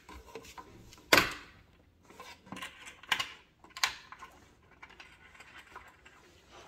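Knocks and clicks of flat-pack furniture parts being handled and fitted during assembly: one sharp knock about a second in, a few lighter clicks after it, then faint rustling.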